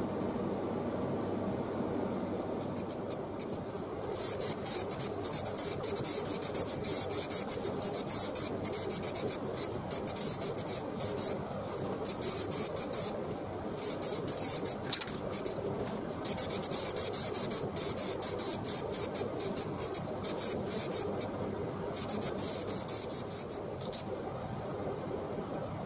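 Paint being sprayed in repeated bursts of hiss, each lasting a second or a few seconds with short pauses between. Under it runs a steady low background noise.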